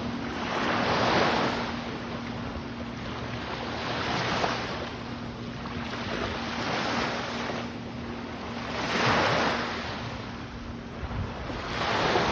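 Ocean surf washing onto the beach, swelling and falling every two to three seconds, with wind buffeting the microphone and a faint steady hum underneath.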